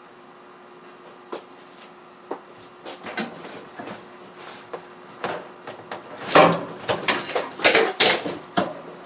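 Tools and parts being handled on a workbench: a few scattered light knocks, then a cluster of louder knocks and clatters in the last three seconds.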